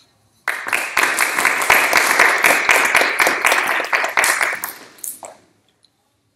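A small audience clapping for about four seconds, starting about half a second in and dying away after that.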